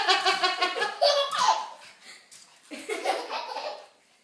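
Laughter: a run of quick, rapid-fire 'ha-ha-ha' pulses, then a second shorter burst of laughing about three seconds in, dying away near the end.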